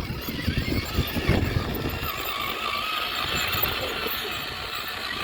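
Small electric motor of a remote-control toy vehicle whining steadily, with low rumbling and knocks in the first two seconds.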